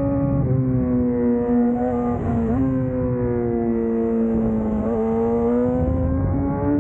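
Yamaha R6's 600 cc inline-four engine running at high, fairly steady revs under way. Its pitch sags slowly, with two brief dips about two and a half and five seconds in, and climbs again near the end.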